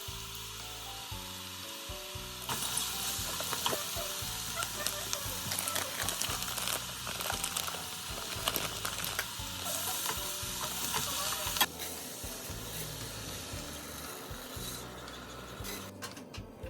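Food sizzling in a frying pan while it is stirred, with small utensil scrapes and clicks. The sizzle grows louder a few seconds in and drops off suddenly a few seconds before the end, under background music.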